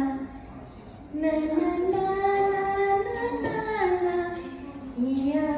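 A woman singing a Hindi film song: long held notes that slide up and down in pitch, with a short break about half a second in and a fresh note starting near the end.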